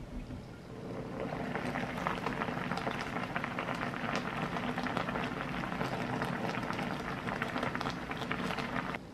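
Pot of water at a rolling boil around whole sweet potatoes, a steady bubbling and crackling. It swells about a second in and cuts off abruptly near the end.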